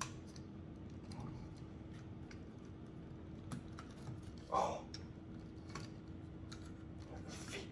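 Small scattered clicks and taps of a JoyToy Nemesis Dreadknight action figure's plastic and metal parts being handled as a pilot figure is pressed into its cockpit, with one louder sound about halfway through.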